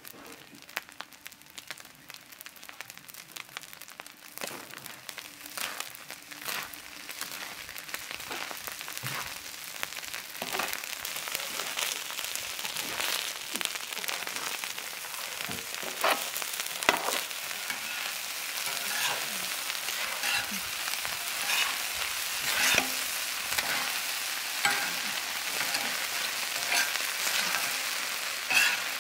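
Egg rice sizzling on a large flat tawa griddle while a metal spatula stirs it, scraping and tapping against the griddle many times. The sizzle grows louder over the first dozen seconds.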